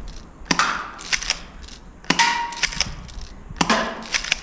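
Spring-powered FNS-9 airsoft pistol firing: three sharp snaps about a second and a half apart, with lighter clicks in between. The second shot is followed by a short ringing tone.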